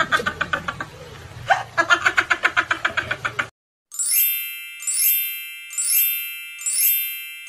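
Fast pulsing music that cuts off about three and a half seconds in, then a pop-up sound effect: a quick swish ending in a bright ringing ding, four times about a second apart.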